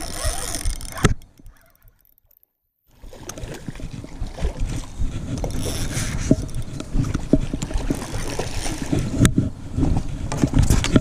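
Rumbling wind and handling noise on a body-worn camera's microphone, with scattered light knocks, as a spinning reel is cranked to retrieve a lure. The sound cuts out for about two seconds just after the start.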